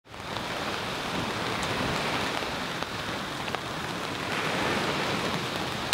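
Steady rain falling, an even hiss with a few faint drop ticks, fading in quickly at the start.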